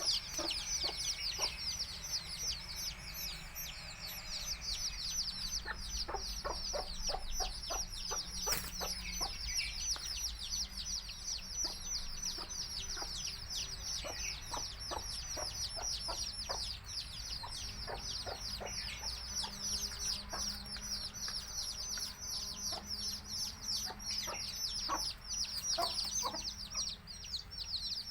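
A brood of baby chicks peeping continuously, a dense chorus of high, quickly falling peeps. A hen's short, low clucks are scattered through it, typical of a mother hen calling her chicks to food.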